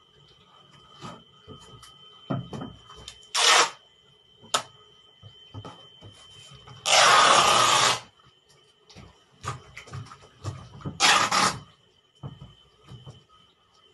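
Packing tape pulled off its roll in three harsh rasping strips, the longest about a second, amid knocks and rustling of items being packed into a cardboard box. A faint steady high whine runs underneath.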